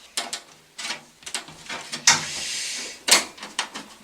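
Side panel of a desktop PC case being fitted back on: a series of clicks and knocks, with a scraping slide lasting just under a second about halfway through.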